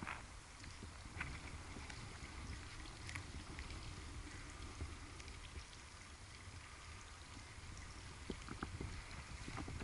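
Faint wind rumble on the microphone, with a few scattered light footsteps on pavement as the camera is carried.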